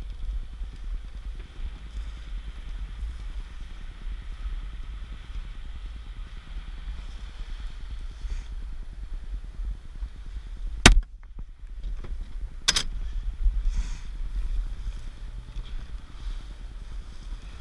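A rifle shot about eleven seconds in, followed under two seconds later by a second, quieter sharp crack, over the steady low rumble of a small boat's motor and wind.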